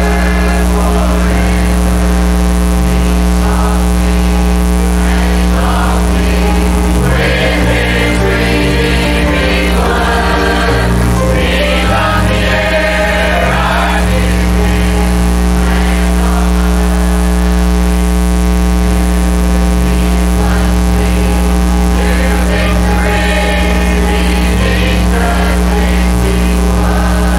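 Church choir singing a gospel hymn, accompanied by piano and guitars.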